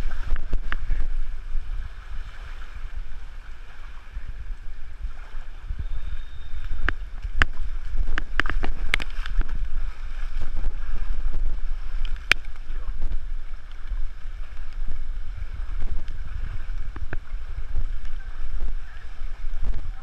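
Muddy floodwater sloshing and splashing around the legs of someone wading through a flooded street, with scattered sharp splash clicks. A steady low rumble of wind on the microphone runs underneath.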